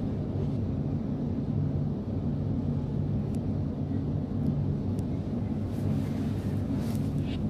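Steady low hum and rumble of an electric train under way, heard from inside its driver's cab.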